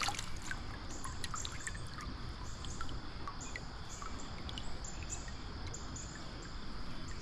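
Stream water running, with a high, short chirp repeating about twice a second over it and a few faint ticks.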